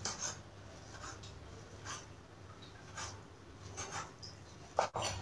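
Kitchen knife slicing cooked chicken thinly on a bamboo cutting board: faint scraping strokes about once a second, with a slightly sharper knock near the end.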